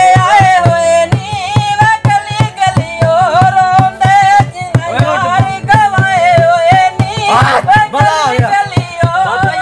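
A song: one voice singing an ornamented, wavering melody over a quick, steady hand-drum beat.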